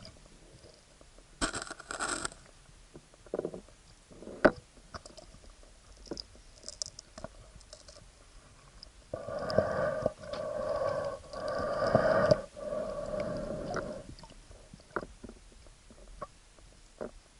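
A spearfisher breathing heavily, four breaths in a row about nine seconds in, muffled and hollow inside the action camera's waterproof housing. Before that come scattered clicks and knocks of handling against the housing.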